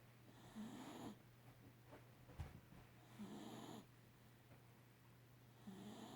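Faint, slow snoring: three snores about two and a half seconds apart, with a short knock a little before the middle.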